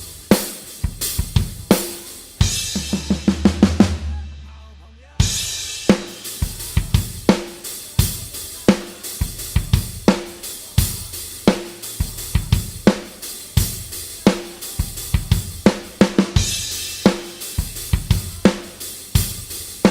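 Isolated drum-kit track: kick, snare, hi-hat and cymbals playing a steady rock beat. About two and a half seconds in comes a quick run of strokes, then a short lull of about a second, and the beat comes back in with a cymbal crash.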